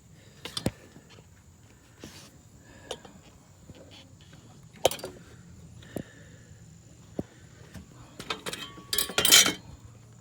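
Hand tools and metal engine parts clinking and knocking as bolts and fittings are worked loose: scattered sharp clicks, with a louder metallic rattle near the end.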